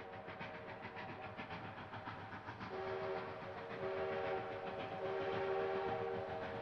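Durango and Silverton narrow-gauge steam locomotive sounding its whistle, a long chord of several notes. The lowest note grows louder about two and a half seconds in and swells twice more near the end. The quick chuff of the locomotive's exhaust runs underneath, plainest in the first half.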